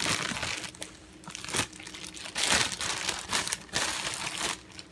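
Plastic bread bag crinkling in several bursts as slices of high-fiber bread are taken out of it.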